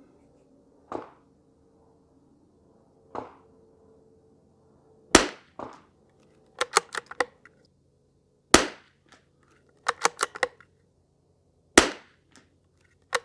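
Three shots from a bolt-action Lithgow LA101 .22 LR rifle firing Lapua Long Range, about three and a half seconds apart. Each shot is followed by a quick run of metallic clicks as the bolt is worked to eject the case and chamber the next round. Two fainter knocks come before the first shot.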